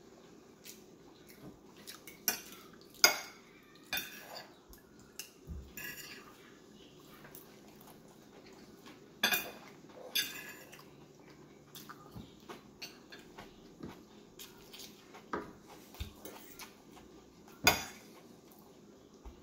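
Metal fork clinking and scraping against a ceramic plate of rice and potato chips: scattered sharp clicks, a few loud ones around three, nine to ten and eighteen seconds in, with fainter ticks between.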